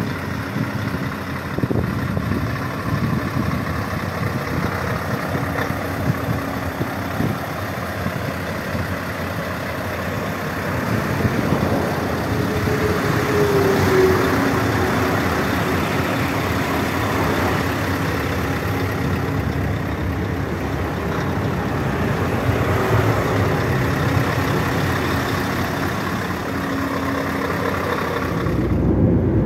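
Scania 770 S's 16-litre V8 diesel idling steadily while parked. Near the end the sound cuts abruptly to a different, deeper engine sound.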